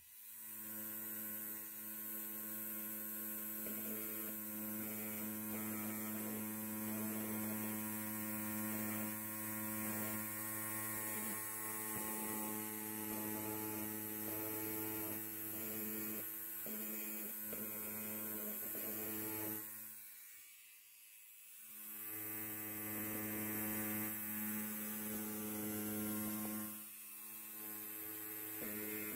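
Electric hair clipper running with a steady buzz. It fades away briefly about two-thirds of the way through, then comes back, and dips once more near the end.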